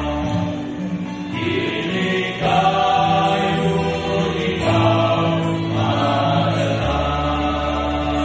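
Men's vocal group singing together in harmony, holding long chords over a low bass note.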